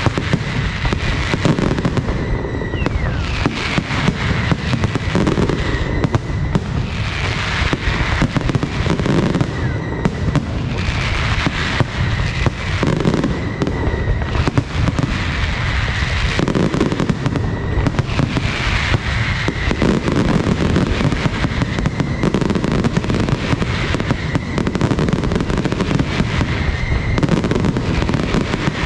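Caballer FX aerial fireworks display going off in a dense, continuous barrage: shell bursts and reports overlapping with no pause, with short high tones recurring throughout.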